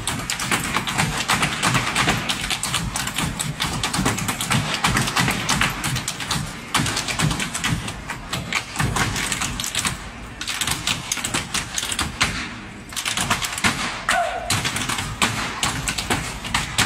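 Ottawa Valley step dancing: four dancers' shoes tapping and stamping in rapid, tightly synchronised rhythms on a wooden stage floor, with no music, broken by a few brief pauses in the second half.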